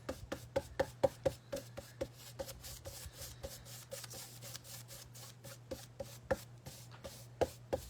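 Paintbrush working back and forth over a flat canvas artboard, blending wet acrylic paint: a steady run of soft taps and rubs, about three or four a second, a few louder ones near the end.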